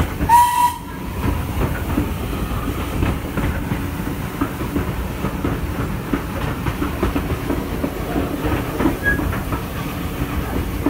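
Steam-hauled railway coach running along: a steady rumble of wheels on the rails with irregular clicks over the rail joints. A brief high-pitched toot comes about half a second in.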